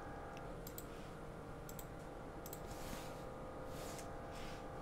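Several faint, scattered computer-mouse clicks, with a few soft swishes, over a steady low hum.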